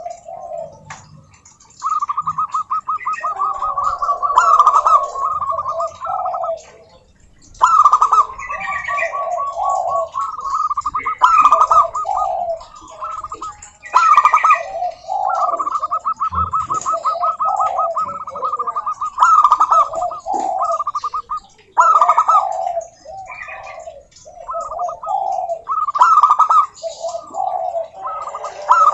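Zebra doves (perkutut) singing: phrases of a few seconds of rapid, stuttering cooing notes, repeated after short pauses.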